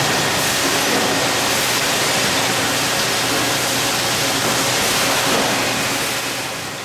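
Steady factory-floor din: even, hissing air-and-machinery noise with a faint low hum underneath. It fades out near the end.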